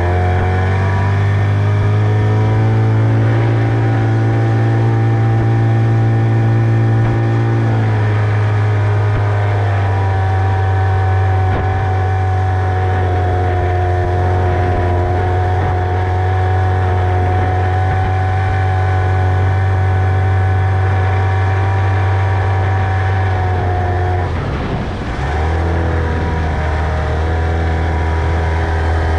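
Tohatsu 25 outboard motor running steadily under way. Near the end the engine note drops briefly and comes back up as the throttle is eased and reopened.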